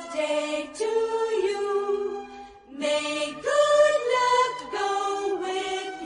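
Background music: a slow song with long held sung notes, which pauses briefly about two and a half seconds in.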